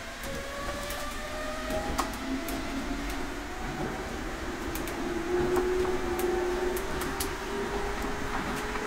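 Tama Toshi Monorail car running along its guideway, heard from inside the car: electric motor whine gliding upward in pitch over steady running noise, with a few light clicks.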